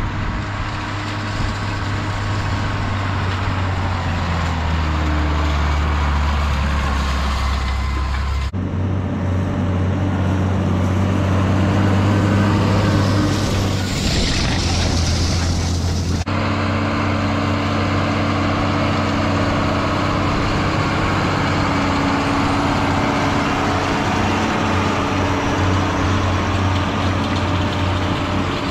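Diesel tractor engine running steadily under load, its note changing abruptly twice where the footage is cut.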